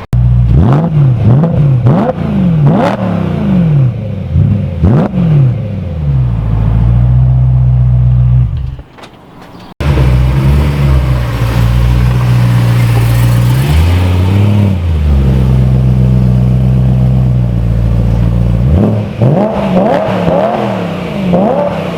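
BMW E93 M3's 4.0-litre V8 with a Remus axle-back exhaust being revved: several quick blips, the pitch rising and falling sharply, then steadier running after a sudden cut about ten seconds in, with more short revs near the end.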